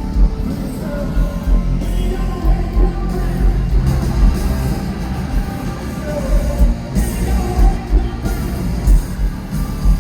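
Hard rock band playing live in an arena: distorted guitars, bass and pounding kick drum, with a singing voice over them.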